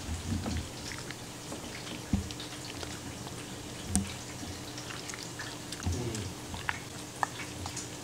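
A husky gnawing on a chew stick: scattered soft clicks and knocks of teeth on the chew, with sharper clicks about four seconds in and again near the end.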